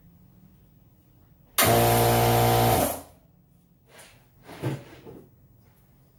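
Impact wrench run in one loud burst of about a second, a steady rattling buzz that starts and stops abruptly. A few light knocks and clanks follow.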